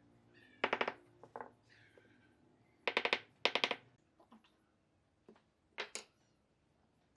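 Wooden mallet knocking glued log pieces into place, wood on wood: several short runs of quick knocks with pauses between them.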